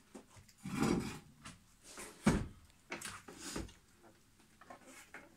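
Handling noises at a shoemaker's bench: rustling and scraping, with a sharp wooden-sounding knock a little over two seconds in as the loudest sound.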